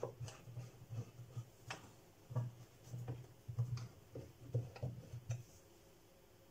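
Faint, irregular clicks and ticks of a flathead screwdriver working the screws of a plastic cooker connection unit faceplate as they are tightened.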